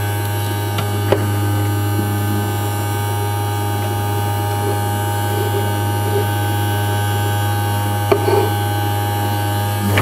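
Battery-powered Bosch toy vacuum cleaner's small electric motor running with a steady hum while its handle nozzle sucks up polystyrene beads; a few faint clicks.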